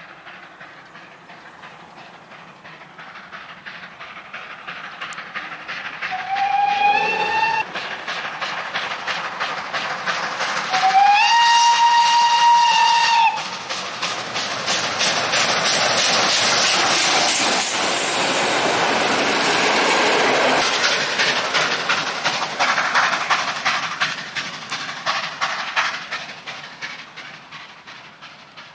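Ol49-69 steam locomotive hauling a passenger train, working with a steady rhythm of exhaust beats as it approaches, passes close and draws away. Its steam whistle sounds twice, a short blast and then a longer, louder one, each sliding up in pitch as it starts. The train is loudest in the middle and fades toward the end.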